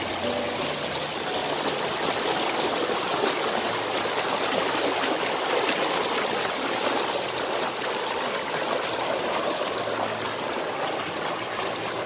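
Stream water flowing steadily, a constant rushing noise.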